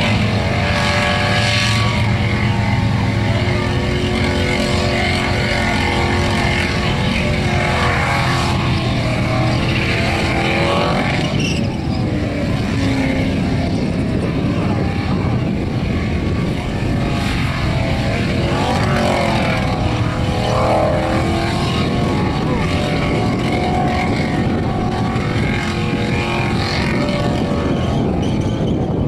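Holden VP Commodore wagon's 5-litre V8 held at high revs through a burnout, rear tyres spinning and smoking on the bitumen. The revs rise and fall several times over a steady wash of tyre and exhaust noise.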